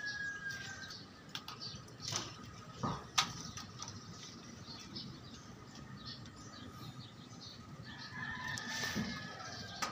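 Small birds chirping and calling in short, scattered notes, with one longer held whistle near the end. Two sharp clicks come about three seconds in.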